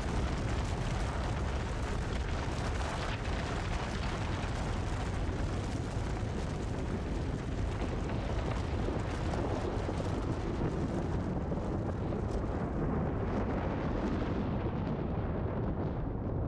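Heavy, continuous rumbling crash of a huge mass of rock and ice collapsing and pouring down, dense and strongest in the low end. The upper hiss thins out near the end.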